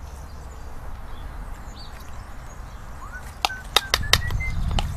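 A plastic cup is tapped several times against the rim of a camping pan to empty the last of the beaten eggs: a quick run of sharp clicks starting about three and a half seconds in. Short chirps sound between the taps, over a steady low rumble.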